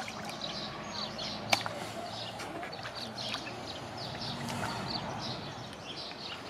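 Small birds chirping and singing in quick repeated phrases over a steady background hiss, with a sharp click about a second and a half in.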